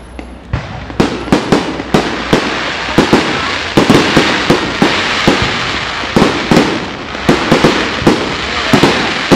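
Fireworks display: aerial shells launching and bursting in a rapid, irregular series of sharp bangs, several a second, over a continuous hiss, starting about half a second in.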